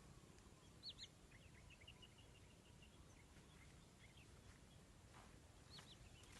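Near silence with faint, short high chirps of small birds calling: a pair about a second in, a quick run of small chirps after it, and another pair near the end.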